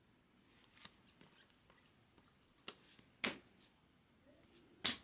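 Stack of baseball trading cards being flipped through by hand, one card at a time: four short, sharp flicks and slides of card stock at uneven gaps, the loudest two about three seconds in and at the very end.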